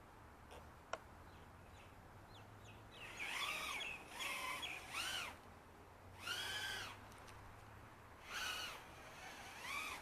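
A bird calling repeatedly: short arching calls in a series, about a second or two apart, over a low steady hum. A single sharp click comes about a second in.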